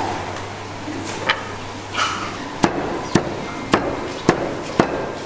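Cleaver chopping crispy-skinned roast pork on a wooden chopping block: about six sharp chops, evenly spaced at roughly two a second, in the second half.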